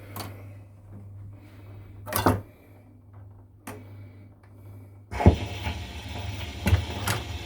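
Marconiphone radiogram humming through its speaker, with a few clicks from handling the pickup. About five seconds in the needle drops onto a 78 rpm record with a knock, followed by surface hiss and crackle from the lead-in groove just before the music begins.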